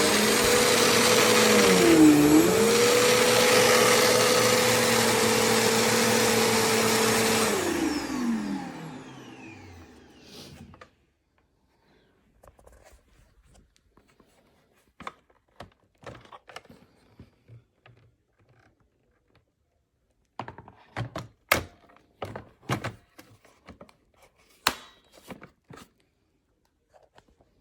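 Bissell vacuum cleaner motor running steadily, its pitch dipping briefly about two seconds in, then switched off and winding down to a stop with a falling whine. Scattered clicks and knocks follow, the loudest a cluster a few seconds after the twenty-second mark.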